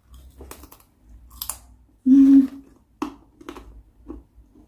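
Someone biting and chewing crisp homemade potato chips: several separate sharp crunches spread over the few seconds. A short hummed voice sound about two seconds in is the loudest moment.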